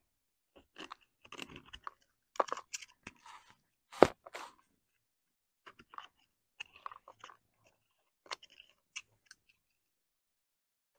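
Steel pick tool scraping and prying old, crumbling seals out of a hydraulic cylinder gland: irregular small crunches and scrapes, with one sharp metal click about four seconds in.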